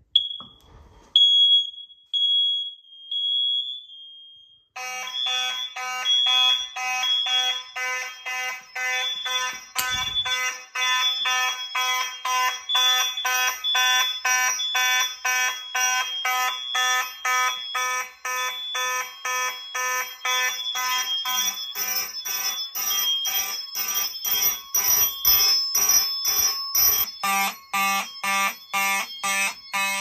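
A smoke alarm set off with its test button beeps at a high pitch for a few seconds. About five seconds in, the fire alarm system's horns sound together in a rapid, even on-off pulse, a buzzing mechanical horn among them. Shortly before the end the pattern changes and a lower buzz joins in.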